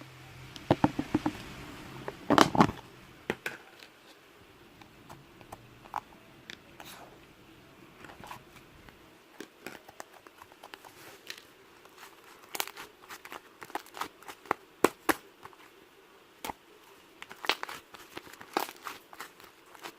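Fluffy, moist clay slime being squeezed and poked by hand: irregular sticky clicks and small crackling pops, with a louder cluster of them about two seconds in.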